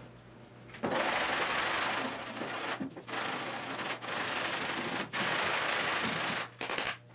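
Hand sanding of body filler on a car body panel with a Dura-Block sanding block: sandpaper rasping over the filler in long back-and-forth strokes. It starts about a second in, with brief breaks between strokes.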